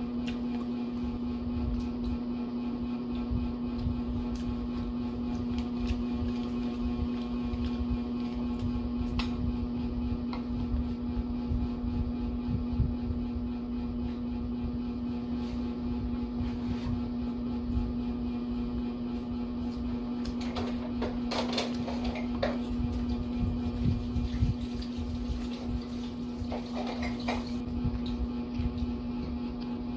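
Banana-leaf wrapper of a budbud balanghoy (cassava cake) rustling and crackling as it is peeled, with the busiest rustling about two-thirds of the way through. A steady low electrical hum runs underneath.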